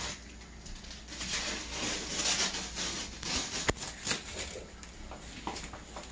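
Hands handling a large cardboard monitor box: uneven scraping and rustling of cardboard and packing tape, with a sharp knock about three and a half seconds in.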